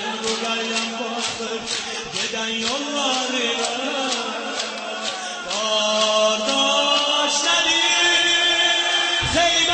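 A man chanting a mourning lament (noha) through a microphone and loudspeakers, over a crowd of mourners beating their chests in unison about twice a second. The chant gets louder about halfway through.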